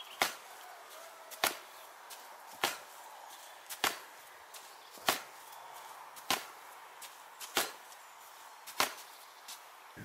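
Sharp knocks at a steady pace of about one every 1.2 seconds, most with a faint click just before: gloved punches landing on a target strapped to a tree trunk.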